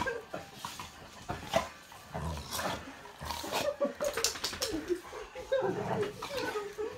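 Dogs play-wrestling with a person on a bed, making whining vocal sounds that waver up and down several times in the second half, amid rustling and bumping of bedding and bodies.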